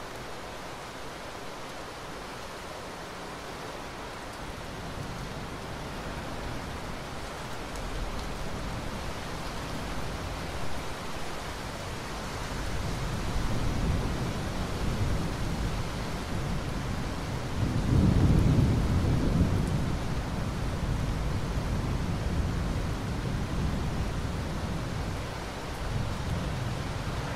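Steady rain hiss with a deep rumble of thunder rolling in underneath. The rumble builds gradually and is loudest about two-thirds of the way through.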